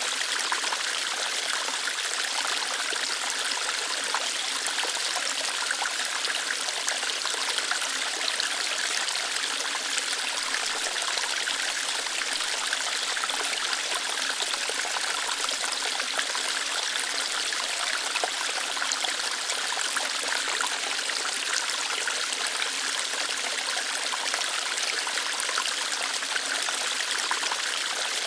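Small waterfall running lightly over rocks: a steady, even splashing and trickling hiss, with most of its sound in the high range.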